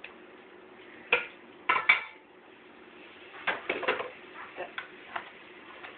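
A cooking utensil knocking and clinking against a stovetop pot while a browning roast is turned: three sharp knocks in the first two seconds, then a quicker run of clinks and a few lighter taps.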